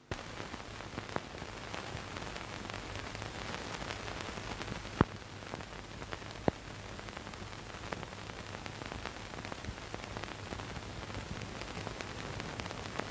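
Steady hiss and low hum of an old film soundtrack, with scattered clicks and pops, the loudest about five seconds in.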